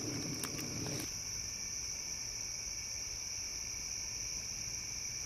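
Steady high-pitched chorus of night insects in the woods, typical of crickets, going without a break. Soft rustling and a few clicks in the first second stop abruptly about a second in.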